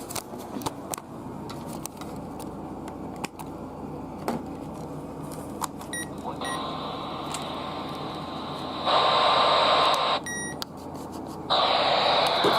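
Weather radio receiver being handled: a few clicks, then short electronic button beeps, and radio static hiss from its speaker that comes in about halfway through and turns louder in two stretches near the end, with a short break between them, the sound of a receiver getting poor or no reception.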